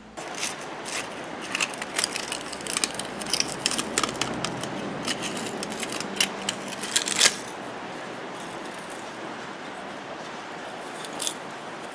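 Crackling, scraping and tearing as the torn old cone and surround and the burnt voice coil are worked loose and pulled out of a blown speaker's frame by hand. The handling stops about seven seconds in, leaving a low hiss and one more click near the end.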